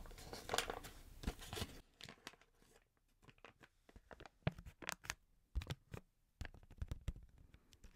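A packet being torn open and crinkled by hand close to the microphone: a tearing rustle for the first couple of seconds, then scattered sharp crackles.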